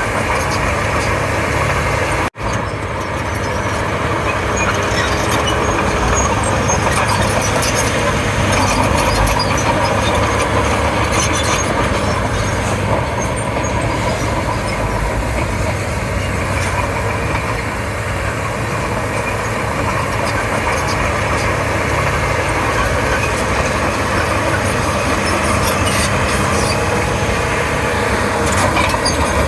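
Komatsu D31P crawler bulldozer's diesel engine running steadily as it works, with scattered light clicks and clanks over it. The sound cuts out for an instant about two seconds in.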